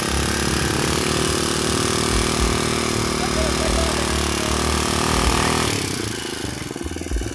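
Engine of a homemade mini farm carrier running as the vehicle drives along, a steady drone that drops away about six seconds in.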